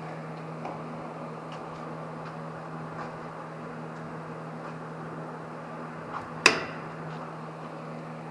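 Metal parts and hand tools being handled over a steady low hum, with a few light clicks and one sharp, ringing metal clink about two-thirds of the way through.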